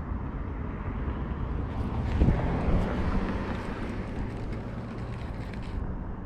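Low outdoor rumble of a passing motor vehicle, loudest about two seconds in, with a faint steady engine hum after.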